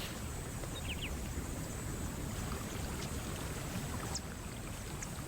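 Shallow water sloshing and lapping as a lion moves through it, a steady low wash of sound, with a couple of faint short chirps about a second in.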